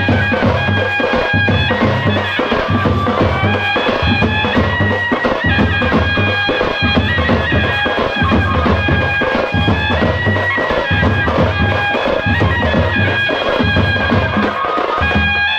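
Traditional festival music: a shehnai-type double-reed horn playing a long, ornamented melody over a steady drum beat of about one stroke a second.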